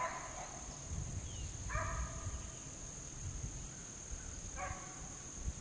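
Beagles baying on a rabbit's trail: single short bays come every few seconds, about three in all. A steady high insect drone runs underneath.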